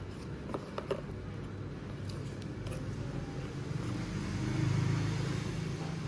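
Light clicks of cardboard gift boxes being handled, over a steady low rumble of road traffic that swells near the end.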